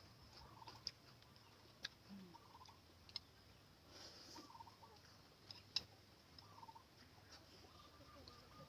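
Faint clucking of domestic chickens every second or two, with a few sharp clicks in between.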